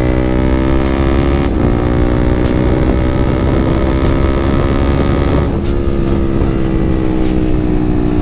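Yamaha MT-15's single-cylinder engine through a loud aftermarket exhaust, riding under power, with two brief breaks in the engine note about one and a half and five and a half seconds in, as at gear shifts.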